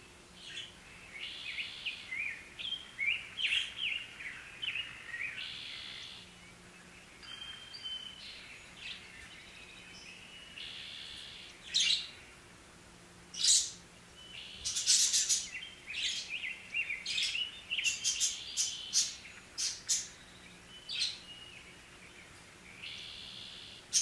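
Budgerigars chirping and warbling in quick, chattering runs, busier and louder in the second half, with a few sharp, shrill calls among them.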